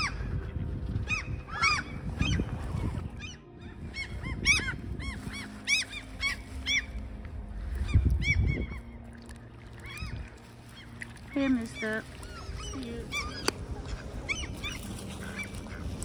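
Gulls calling again and again: a quick series of short, rising-and-falling calls, thick in the first half and thinning out after.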